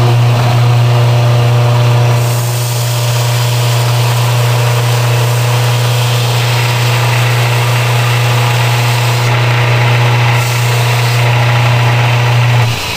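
Electric belt sander running with a steady, loud motor hum. From about two seconds in, a Baltic birch plywood boomerang is held against the moving belt, adding a sanding hiss. The hum cuts off near the end.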